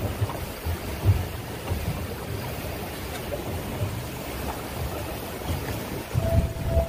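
Wind buffeting the microphone and water rushing around an offshore fishing boat, a steady rush with irregular low thumps. Near the end a steady high electronic-sounding tone starts and holds.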